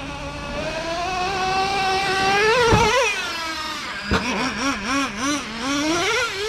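Traxxas TRX 3.3 nitro engine of a Revo RC truck running under throttle. Its pitch climbs steadily, there is a sharp knock about two and a half seconds in and another near the middle, and then the throttle is blipped on and off about three times a second.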